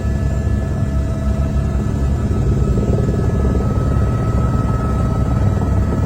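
Helicopter in flight: steady, loud rotor and engine noise, with a few faint steady whining tones above it.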